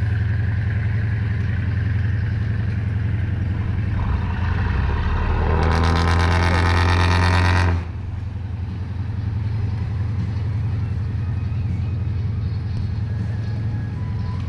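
Boat engine running steadily. About four seconds in it revs up, rising in pitch and getting louder, then drops back abruptly near the eight-second mark and runs on at a lower level.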